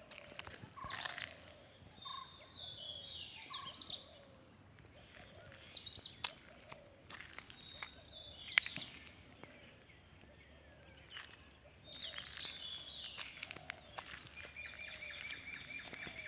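Several birds chirping and calling in short, quick, sweeping notes, some loud and close, over a steady high drone; near the end one bird gives a fast run of repeated notes.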